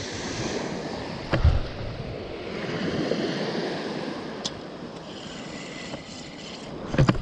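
Small surf waves washing steadily onto a sandy beach, with a single thump about a second and a half in and a couple of knocks near the end.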